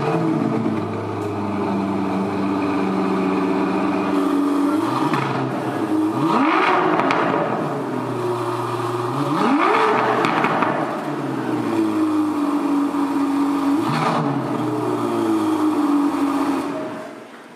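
A 2023 Aston Martin V12 Vantage's 5.2-litre twin-turbo V12 running just after start-up. It is revved three times, each time rising sharply in pitch and settling back, then it cuts off near the end.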